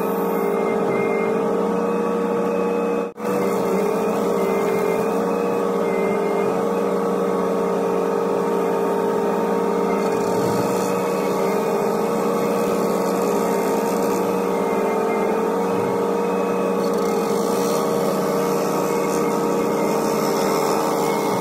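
Hitachi ZX125W wheeled excavator's engine and hydraulics running steadily, heard from inside the cab, with a steady whine that wavers slightly in pitch. The sound drops out briefly about three seconds in.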